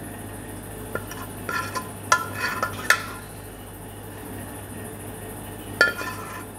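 A stainless-steel ladle clinking and scraping against a ceramic plate as food is pushed around on it. There are sharp ringing taps about one, two, three and six seconds in, over a steady low hum.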